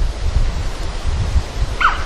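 Wind buffeting an outdoor microphone, a steady low rumble. Near the end comes one short whistle that slides quickly downward.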